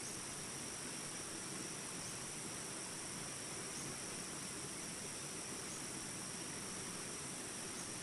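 A shallow river running over rapids in a steady rush, with jungle insects chirping in a continuous high drone.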